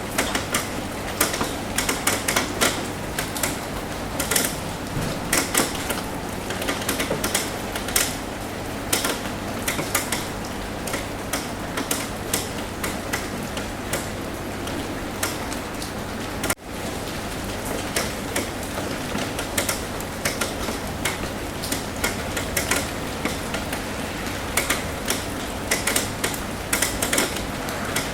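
Rain tapping on a roof: a steady patter with many irregular, sharp drops striking the surface, broken by a momentary dropout about two-thirds of the way through.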